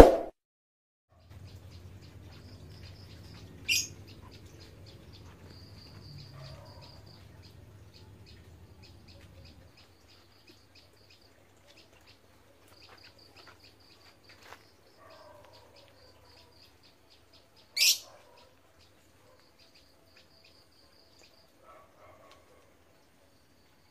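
Small birds chirping, a run of short high tweets with two louder, sharper calls about four seconds and eighteen seconds in. A low hum runs underneath and stops about ten seconds in, and a single ding sounds at the very start.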